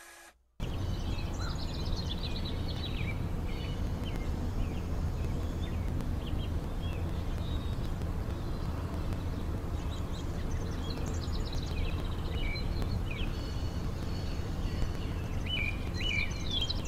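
Birds chirping on and off over a steady low outdoor rumble, starting about half a second in after a moment of near silence; the chirps come thicker near the end.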